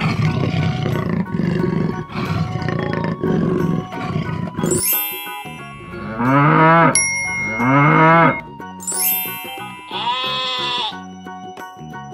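Animal sound effects over children's music. A big cat growls for the first five seconds or so, then a cow moos twice, then a sheep bleats about ten seconds in. Sweeping chime runs fall between the calls.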